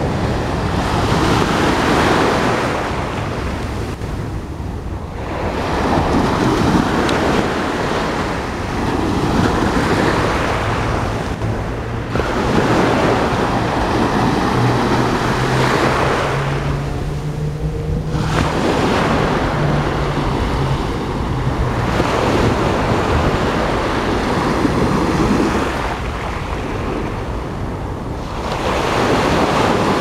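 Small Mediterranean waves breaking and washing up the beach, the surf swelling and ebbing every four to six seconds. A faint low hum rises in pitch from about ten seconds in and fades out a little after twenty seconds.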